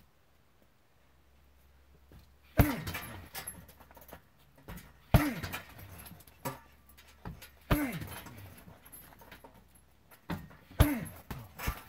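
Kicks landing on a hanging heavy punching bag: four hard thuds about two and a half seconds apart, each followed by a short breathy grunt from the kicker, with lighter knocks in between.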